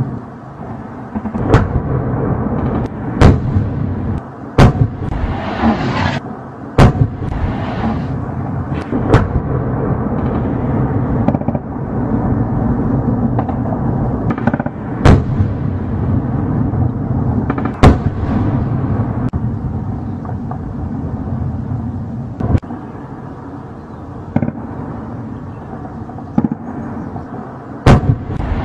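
Heavy weapons fire: about a dozen sharp, loud reports at irregular intervals, a second to several seconds apart, over a continuous low rumble.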